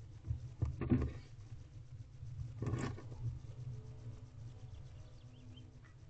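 Barn owl tearing at a rabbit carcass in a nest box: short bursts of rustling and scraping in the wood shavings, once about a second in and again about three seconds in, over a steady low hum.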